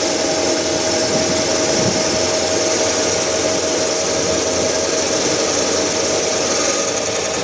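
A CNC special-purpose machine for combined turning, milling, drilling and tapping, running steadily: a constant machine whine over a broad hiss, with the high hiss easing slightly near the end.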